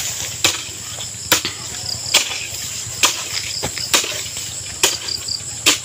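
A hand digging tool chopping into the soil at the bottom of a pit, seven strikes a little under a second apart, over steady cricket chirping.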